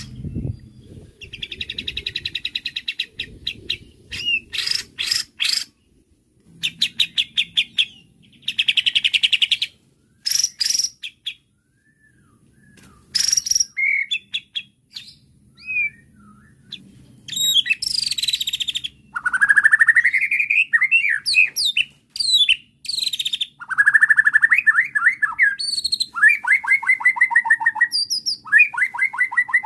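White-rumped shama (murai batu) singing an agitated, varied song: phrases of rapid trills, fast rattling notes and rising and falling whistles, broken by short pauses. It is the aggressive, full-repertoire singing of an excited shama.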